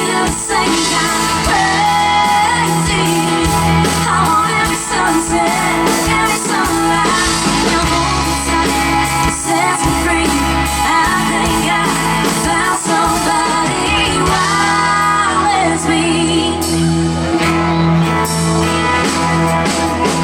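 A live band plays an upbeat country-pop love song while a woman sings the melody.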